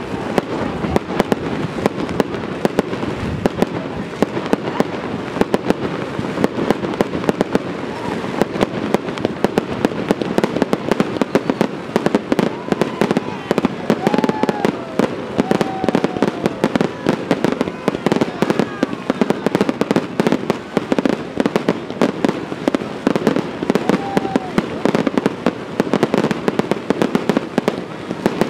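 Aerial fireworks going off in rapid succession: a dense, unbroken run of bangs and crackles from many bursts at once.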